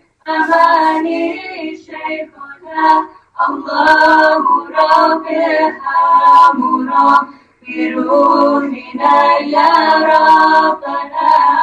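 Female voices singing a devotional nasheed in short phrases separated by brief pauses.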